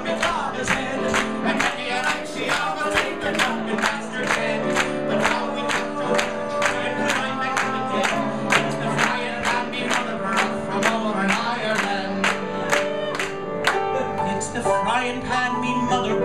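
Song accompaniment with a steady beat of about two a second under held musical notes, with singing.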